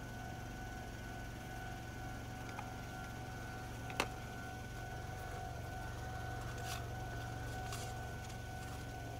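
Japanese railway level-crossing warning bell ringing steadily, heard from inside a car waiting at the crossing, over the car's low idling hum. A single sharp click sounds about four seconds in.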